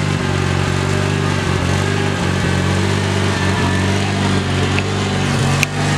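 Riding lawn mower engine running at a steady speed, with one brief click about five and a half seconds in.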